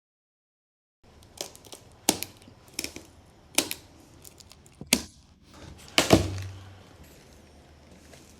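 Sharp snaps and knocks of a large cardboard shipping carton being cut open and handled. There are about seven short hits over several seconds, and the loudest comes about six seconds in.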